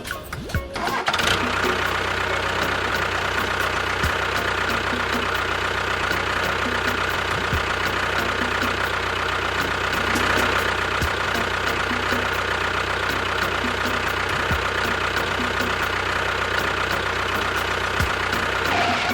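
A small engine running steadily with a fast, rattly knock. It starts about a second in and cuts off suddenly at the end, with a faint low thud every few seconds.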